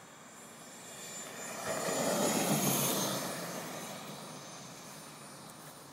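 JetCat P140RX model turbine of an RC jet passing by: a high whine and rushing noise swell to a peak about two and a half seconds in, then fade as it moves away, the whine dropping a little in pitch.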